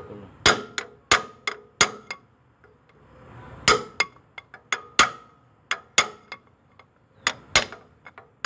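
A hammer striking an iron pipe used as a drift, driving a new 32 mm freeze plug (core plug) into the engine block. The knocks are sharp and metallic, each with a short ring, and come in irregular runs with a pause about two seconds in.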